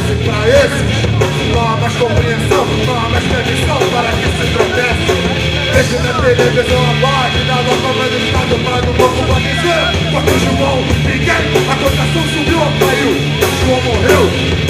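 Punk rock band playing loud and fast: distorted electric guitar, bass and a drum kit hit in a steady beat, with a singer shouting over them.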